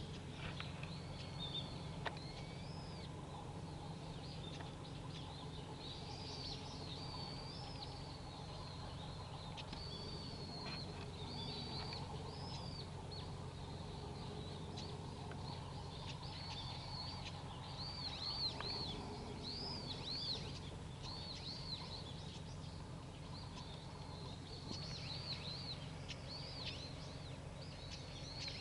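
Small birds calling: many short, high, arching chirps repeated throughout, over a steady low background hum.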